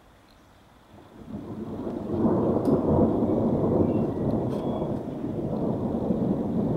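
Thunder rumbling: a low rumble begins about a second in, builds over the next second, then rolls on loudly without letting up.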